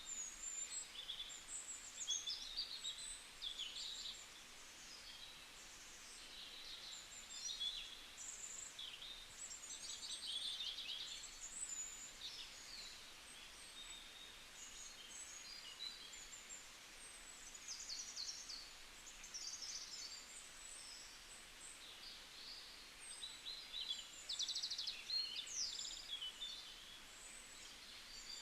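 Forest birds chirping and trilling, several short high calls overlapping, with a few quieter gaps, over a faint steady background hiss.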